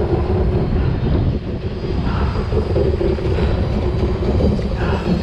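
Stand-up jet ski's two-stroke engine running with a steady low drone.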